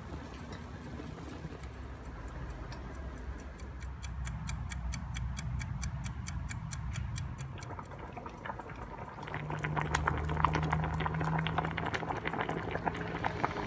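Mechanical wind-up kitchen timer ticking rapidly and evenly, about five ticks a second, over a low hum. About nine seconds in, the ticking gives way to a pot of vegetables boiling, with louder, irregular bubbling and popping.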